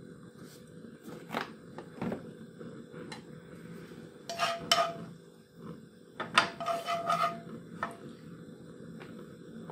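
Kitchen utensils and cookware knocking and clinking: scattered single knocks, and two brief clusters of ringing clinks about four and a half and six and a half seconds in.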